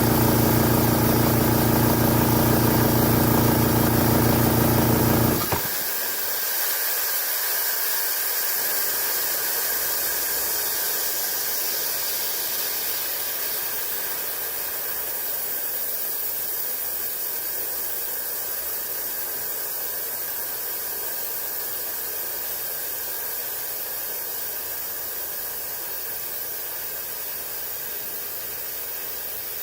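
Old air compressor running steadily, its motor cutting off abruptly about five seconds in. A steady hiss of escaping air follows and slowly fades.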